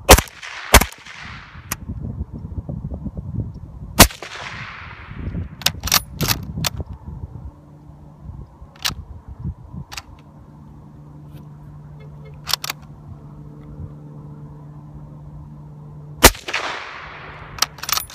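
Suppressed rifle shots, each a sharp report with an echoing tail: a double report at the start from a suppressed AK-pattern rifle, one about four seconds in, and one more near the end. Between the shots come sharp metallic clicks, and near the end a Mosin-Nagant's bolt is worked with a few quick clacks.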